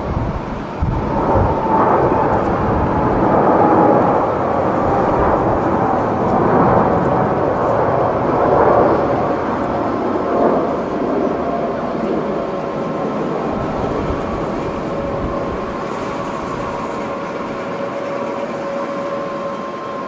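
Boeing 747-8's four GEnx jet engines at takeoff power as the airliner rolls down the runway, lifts off and climbs away. The loud jet noise is strongest over the first half and eases a little as the aircraft climbs, leaving a steady whine.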